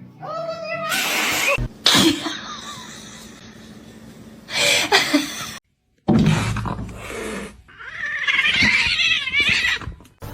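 Domestic cats meowing and yowling in several short bursts, with abrupt cuts and a brief silence between them.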